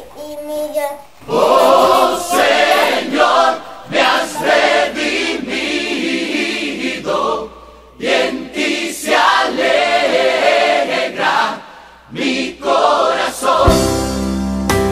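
A choir singing without accompaniment, in sung phrases broken by short pauses. Near the end, instrumental music with steady low notes comes in.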